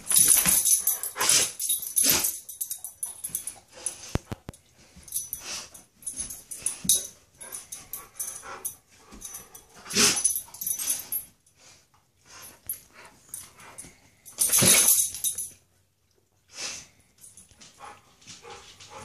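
A large dog making short, irregular noises as it moves about, in many brief bursts; the loudest come about a second in, at about ten seconds and around fifteen seconds.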